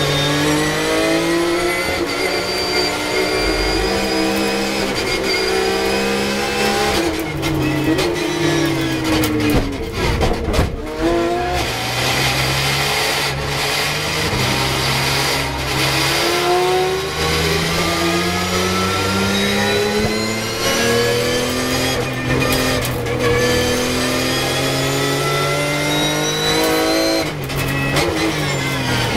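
Porsche 911 GT3 Cup race car's flat-six engine heard from inside the cockpit. It revs up through the gears and drops back off the throttle again and again, falling to low revs in a slow stretch in the middle before pulling hard again.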